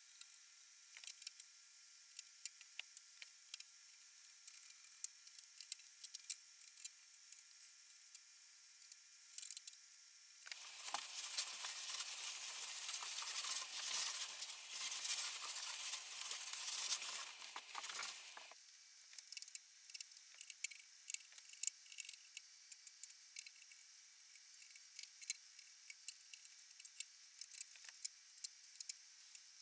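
Hand work on the wood of an old chest: scattered light clicks and taps, then from about ten seconds in some eight seconds of steady scratchy rubbing, as stain is worked into the wood.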